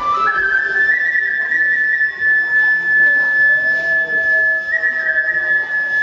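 Kagura bamboo transverse flute (fue) playing: a quick run of rising notes at the start, then long held high notes that shift up and down in small steps.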